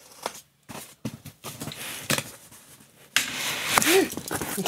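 Scissors snipping and scratching through packing tape on a cardboard box, with scattered clicks. From about three seconds in, louder scraping and rustling as the cardboard flaps are pulled open and the box shifts on the table.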